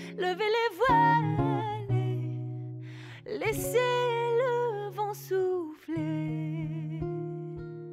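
Background music: a wavering melody with vibrato over long held low notes.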